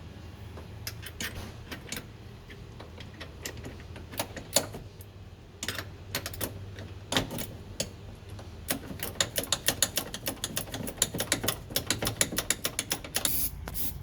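72-tooth hand ratchet clicking as hinge bolts are worked loose, in scattered strokes with a few louder knocks, then a quick even run of about five clicks a second near the end.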